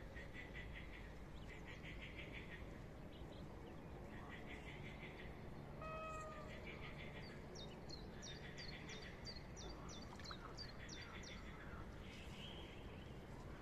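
Faint outdoor animal calls by a pond: several short bursts of rapid trilling in the first seconds, one short pitched call with a slight fall about six seconds in, then a run of high, quick down-slurred bird chirps, about two a second.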